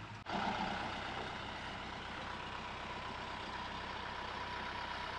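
Kubota MU4501 tractor's four-cylinder diesel engine running steadily, with a thin steady whine over it.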